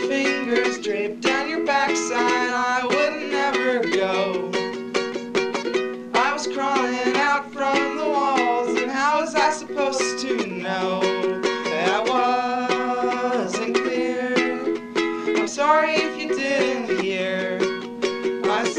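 Music: an acoustic song with plucked strings, ukulele-like, under a melody line that bends up and down in pitch.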